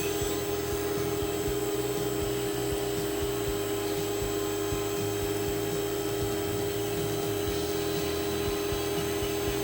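A milling machine running with a steady electric hum, its pitch and level unchanging.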